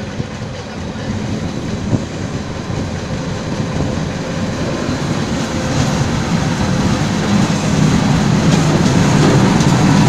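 Diesel engines of road-building machines running: a two-wheel walking tractor and a road roller. The rumble grows steadily louder as the roller drives up close.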